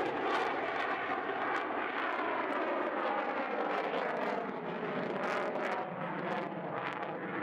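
Jet noise from an F-16 fighter in flight, a steady rushing sound that slowly fades as the jet moves away.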